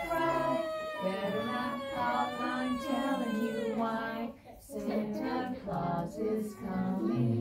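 Young children singing a song together, holding long notes, with a brief break about four and a half seconds in.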